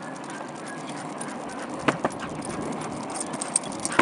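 Penny skateboard's small wheels rolling over pavement in a steady noise, with a few sharp clicks about halfway through and again near the end.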